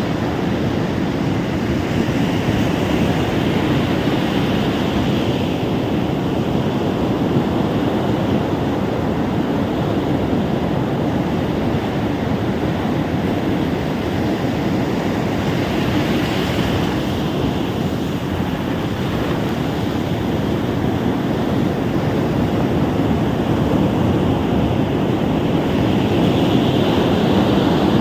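Ocean surf: a steady rushing of waves on the shore, with louder, hissier swells about three seconds in, around the middle, and near the end as waves break and wash up.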